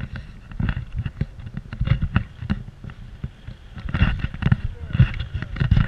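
Wind buffeting the camera microphone in flight under a paraglider: an uneven, gusting rumble that surges and fades, with sharp crackles as the air hits the mic.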